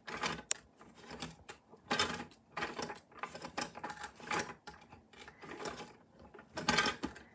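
Plastic Melissa & Doug toy smoothie blender being worked with a hand pressed on its lid: repeated short bursts of ratcheting, gear-like whirring and clicking as the toy blades spin the play fruit.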